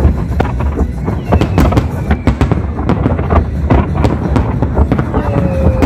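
Large fireworks display: a dense, rapid barrage of bursting aerial shells and crackling, over a continuous low rumble.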